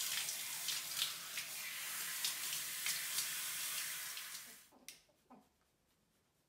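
Handheld shower spraying water onto a wet shih tzu, a steady hiss that cuts off about four and a half seconds in.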